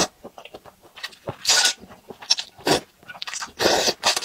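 A person slurping long noodles from a bowl of broth, several short wet slurps with small mouth clicks between them.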